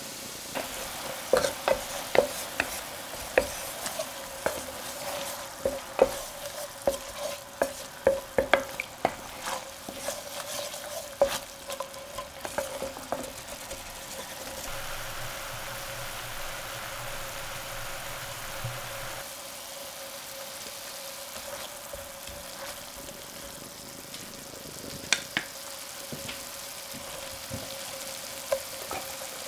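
Wooden spatula scraping and knocking against a stainless steel sauté pan as red wine simmers and sizzles in it, deglazing the pan with spring onion, garlic and ginger. The knocks come thick and fast in the first half, then thin out over a steady sizzle.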